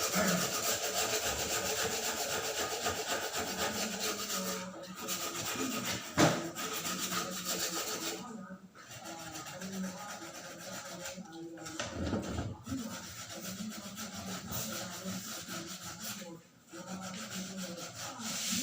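Hand sanding with sandpaper: a steady rasping scrub in long spells with short pauses between them, and a single sharp knock about six seconds in.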